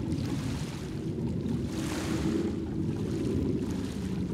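Steady low engine rumble from a distance, mixed with wind noise, with a hiss that swells and fades about two seconds in.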